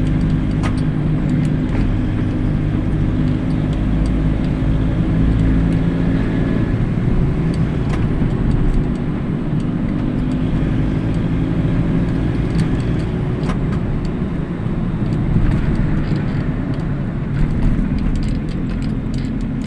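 Motorcycle engine running steadily while carrying an overloaded pile of harvested corn, with scattered clicks and rattles over it.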